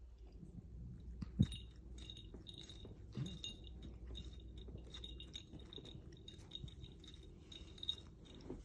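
Tabby cat grooming herself: soft, quick clicks and smacks of her tongue licking fur, with one sharper click about a second and a half in.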